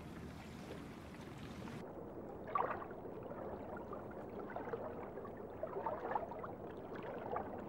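Water lapping and sloshing around a small boat, with a few small splashes. The high hiss behind it cuts out suddenly about two seconds in.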